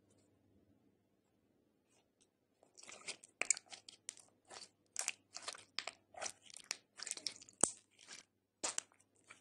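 Glossy orange slime being folded and squeezed by hand, giving a run of short sticky crackles and pops about two a second from about three seconds in, with one sharp click near the end.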